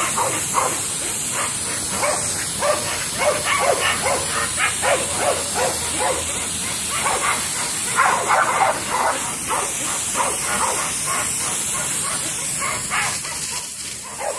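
Dogs barking over and over, with a steady high hiss throughout.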